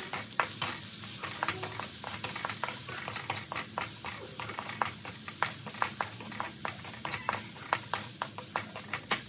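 Wooden spatula stir-frying meat in a metal wok: a steady sizzle of hot oil under many sharp, irregular clicks and scrapes, several a second, as the spatula knocks and scrapes the pan.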